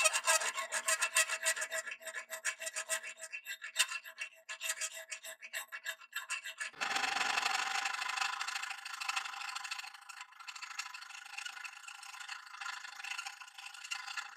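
A round file rasping back and forth across the spine of a car-spring-steel bowie knife blade, cutting scalloped notches. Quick, rhythmic strokes give way about halfway through to a smoother, steadier rasp.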